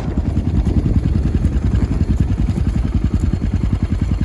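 Yamaha XT 600's air-cooled single-cylinder four-stroke engine idling steadily, with an even, rapid thudding of about a dozen beats a second.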